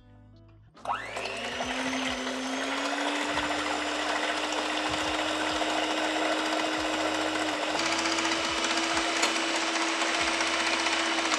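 Electric hand mixer whisking a thin cream, peanut butter and condensed-milk batter: the motor spins up with a rising whine about a second in, then runs steadily with the beaters churning the mixture, stepping slightly higher in pitch about eight seconds in.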